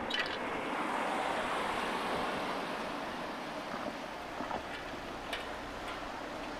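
Steady road and wind noise of a car driving slowly, heard from inside the car, with a light click right at the start and another faint one about five seconds in.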